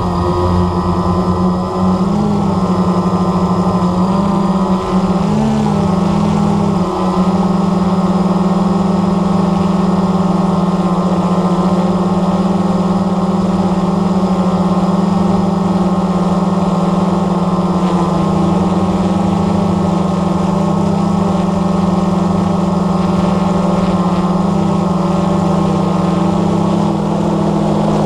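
Blade 350 QX3 quadcopter's motors and propellers buzzing steadily in flight, heard through the GoPro mounted on the drone. The pitch wavers briefly in the first few seconds as the motor speeds change.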